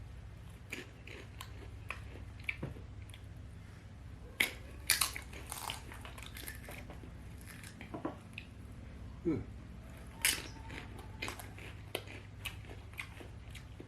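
Close-miked eating: potatoes being bitten and chewed, with irregular wet, crackly mouth sounds. The loudest bites come in a cluster about four and a half to six seconds in and again about ten seconds in.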